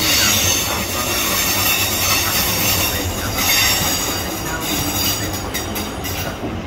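British Rail Class 150 Sprinter diesel multiple unit moving past at close range: steady rumble of the underfloor diesel engines and wheels on the rails, with a high-pitched squeal from the wheels over it.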